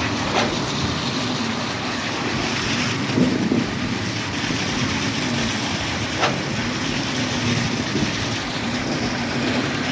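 Concrete pump truck's engine running steadily, with two sharp knocks, one just after the start and one about six seconds in.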